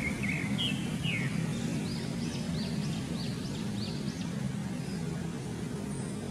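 A bird chirping in short, high, rising-and-falling notes, several a second for the first four seconds or so, over background music.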